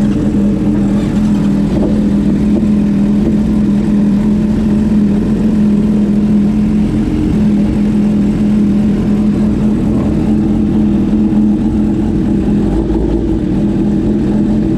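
Motorcycle engine running at a steady, even pitch while riding, with a low rumble of wind and road noise underneath.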